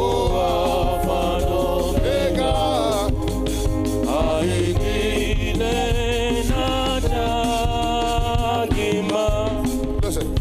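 Gospel worship music: a singing voice with a wavering melody over a steady bass.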